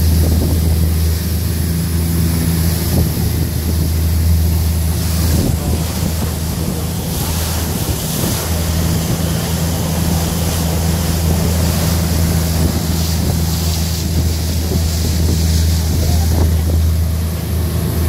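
Longtail boat's engine running at a steady cruise, a constant low drone, with wind buffeting the microphone and the wake's spray rushing along the hull.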